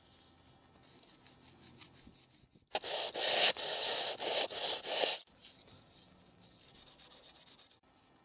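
Rubbing and scratching handling noise from the camera being gripped and moved, with cloth pressed against it, for about two and a half seconds starting near the three-second mark. After that come fainter, quick scratching strokes.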